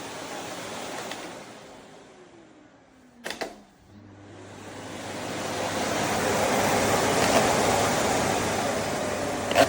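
Philips Series 3000 Performer Compact 900 W bagged vacuum cleaner switched off, its motor winding down with a falling hum. The switch clicks, and the motor starts again and spins back up to a steady rushing run.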